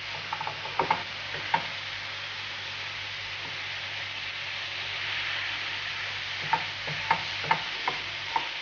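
Ground beef and onion sizzling as they brown in a frying pan, stirred with a wooden spatula. The spatula clicks and scrapes against the pan about a second in and again near the end.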